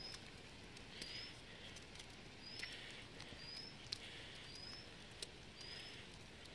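Faint footsteps on wet, slushy paving, about one step a second, each with a short high squeak, and a few light clicks.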